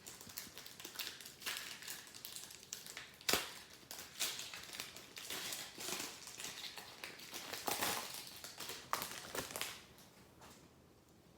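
Foil trading-card pack wrappers crinkling and tearing as packs are opened and the cards are handled, with a string of sharp crackles and one louder snap about three seconds in. It stops about ten seconds in.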